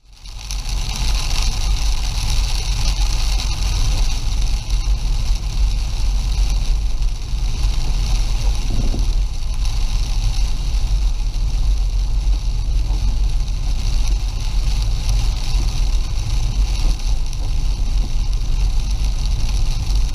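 Strong gusty wind buffeting the microphone during a winter snow squall: a heavy, fluctuating low rumble under a steady hiss.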